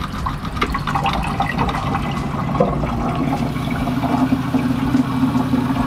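Water running steadily from a pull-down kitchen faucet into a stainless steel sink, the van's newly plumbed fresh-water supply delivering flow. Under the water, a steady low electric hum, typical of the 12-volt water pump running, grows stronger about halfway through.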